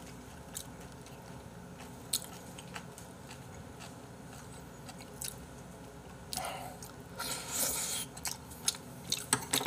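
A person eating close to the microphone: chewing and wet mouth sounds from a mouthful of noodles and spicy stew, with a few sharp clicks. It gets louder and noisier for a couple of seconds about six seconds in.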